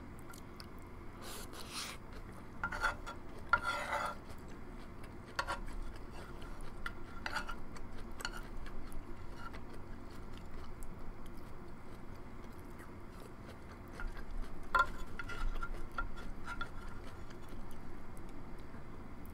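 Eating sounds: a utensil clinking and scraping against the dish of corn cheese every second or so, most often in the first few seconds and again a little after the middle, with quieter chewing between.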